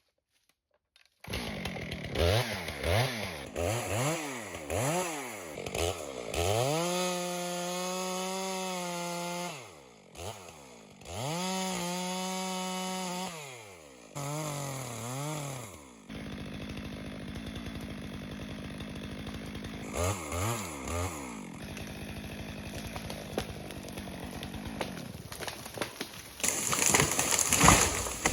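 Chainsaw engine revved up and down several times, twice held at high revs for a few seconds, then running at a steady lower speed with a couple of quick blips. Near the end comes a loud, rough burst.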